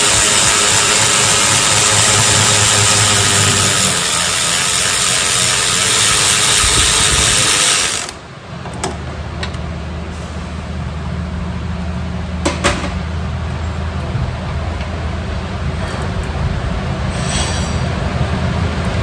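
Guitar background music that cuts off abruptly about eight seconds in. It is followed by a steady low hum and a few sharp metallic clicks of a hand tool such as a ratchet, at work on the vehicle's underside.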